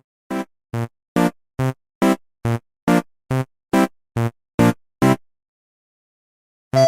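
Music: one low note repeated in short, evenly spaced hits, about two a second, twelve in all. It stops about five seconds in, and a new phrase starts just at the end.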